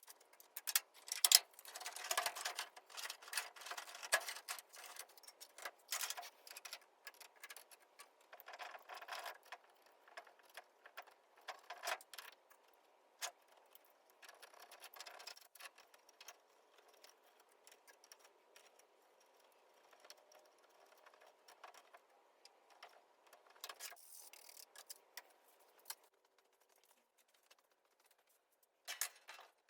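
Scattered clicks, taps and small rattles of hand work on a truck's dashboard: tools and small metal and plastic parts being handled as fittings and wiring are worked loose. Short clusters of clicking come about a second in, and again around nine, twelve, fifteen and twenty-four seconds in.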